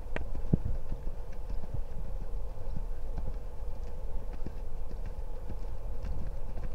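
Quarter Horse gelding's hoofbeats on deep sand as he lopes under saddle: a run of muffled thuds over a steady low rumble.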